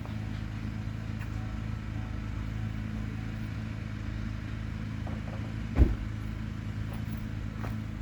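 Duramax diesel pickup engine idling steadily, with a single sharp thump about six seconds in.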